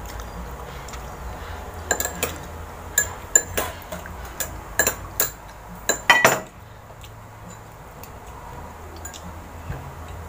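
Cutlery and dishes clinking at a table: a run of sharp clinks and taps from about two seconds in, the loudest about two-thirds of the way through, then only a faint low hum.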